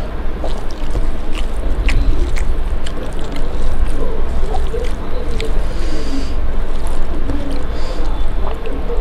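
A hand squishing and mixing wet rice with potato curry on a steel plate: soft wet squelches and small clicks over a steady low rumble.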